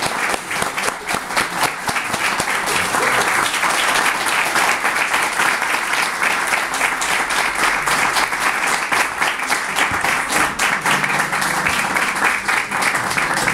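Audience applauding at the end of a solo guitar performance: dense, even clapping.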